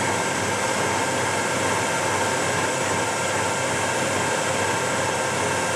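LeBlond Regal Servo-Shift engine lathe running steadily with its spindle at about 1400 RPM: a constant headstock gear whine of several steady tones over a dense mechanical whir.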